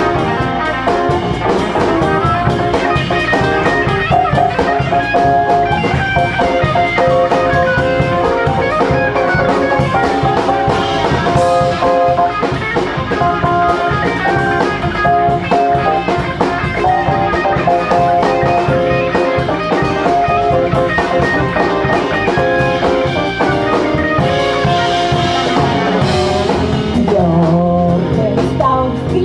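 Live band playing an instrumental passage of a jazz-tinged song without vocals: drums keep a steady beat under a lead instrument playing held melody notes.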